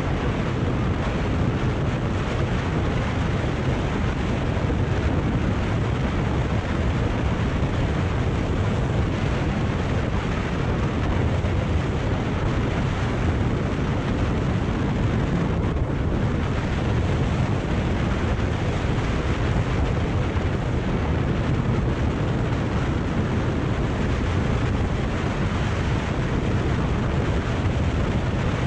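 Steady wind rush on the microphone of a Kawasaki Ninja 400 riding at cruising speed, its parallel-twin engine running under the wind. The sound is even, heaviest in the low end.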